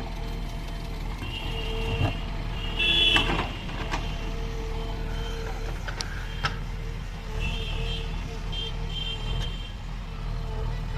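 JCB 3DX Ecoxpert 49 hp backhoe loader's diesel engine running steadily while the backhoe digs. A few sharp clanks and short high-pitched tones come and go over the engine.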